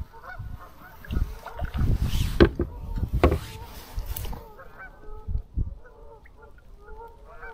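Geese honking, many short calls overlapping throughout. Louder knocks and rustles from handling in the canoe come over them in the first half.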